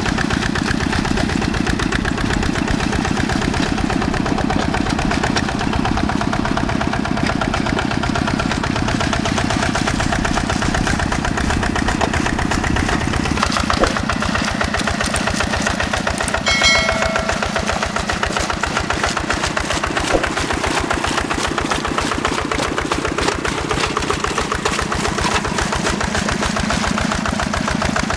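Single-cylinder Yanmar diesel engine of a Quick G 1000 hand tractor running steadily under load while plowing a flooded rice paddy, with an even, rapid firing beat. A brief high-pitched tone sounds about sixteen seconds in.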